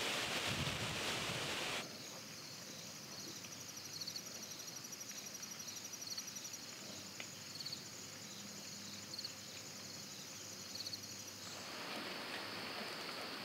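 Insects trilling steadily and high-pitched in an outdoor night-time-style ambience, with short chirps every second or so. A loud rushing noise, like wind or surf, cuts off abruptly about two seconds in, and a broader hiss returns near the end.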